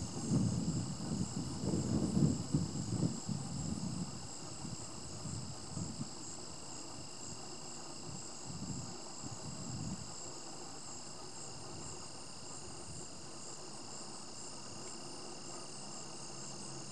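A steady, high-pitched chorus of trilling insects. Low gusts of wind buffet the microphone for the first few seconds, with a few more puffs up to about ten seconds in.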